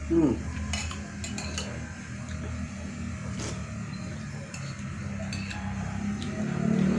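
A spoon clinking against a dish several times while someone eats soup, over a steady low hum. A low rumble grows louder near the end.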